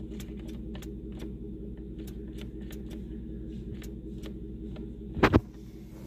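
Light, irregular clicking at the ignition as the key is turned to crank a 2008 Cadillac DTS with a no-crank fault, over a steady low hum. A louder double knock comes about five seconds in. No starter motor or engine is heard.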